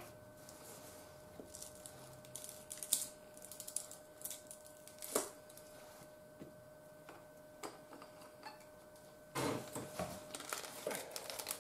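Faint scattered clicks and taps of a plastic dressing bottle being handled over a salad, then, from about nine seconds in, scissors snipping and crinkling open a plastic packet of instant miso soup.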